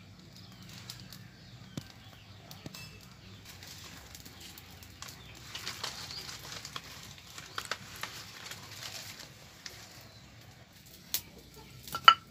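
Dry leaf and stick kindling rustling and crackling as it catches and is pushed into a wood-fired clay stove, busiest in the middle. Near the end come a few sharp knocks with a short ring, the loudest sounds.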